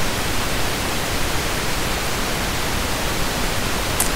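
Steady hiss of recording noise from the microphone, even across the whole range, with a single short click near the end.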